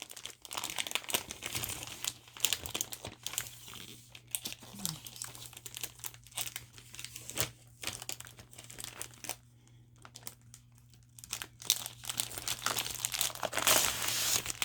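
Paper crinkling and rustling in irregular bursts as a scrapbook paper pad is handled and its sheets turned. There is a quieter stretch about two-thirds through and a loud rustle near the end, over a faint steady low hum.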